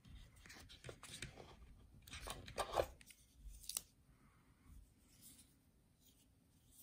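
Hands lifting small camera parts out of a cardboard box insert and handling them: faint rustling, scraping and clicks, busiest in the first four seconds, loudest about three seconds in.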